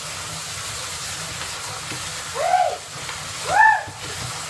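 Water running into a bathtub with a steady hiss. Two short high cries, each rising and falling in pitch, come about two and a half and three and a half seconds in.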